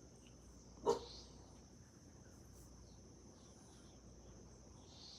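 A pug gives a single short, soft bark about a second in, against a faint, steady high chirring of crickets.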